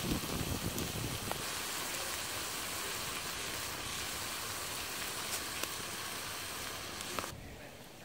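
Ground turkey sizzling in hot oil in a cast iron skillet over a campfire: a steady hiss with a few sharp pops, dropping off abruptly near the end.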